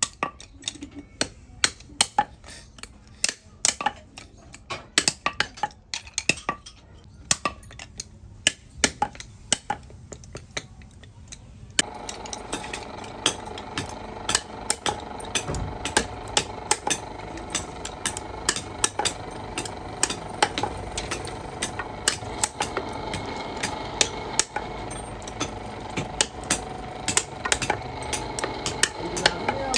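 Sharp, irregular taps and clicks from hand work on wooden bobbins, several a second. About twelve seconds in, a small electric motor starts running with a steady hum under continuing clicks; it drives a spindle that spins a wooden bobbin for lacquering.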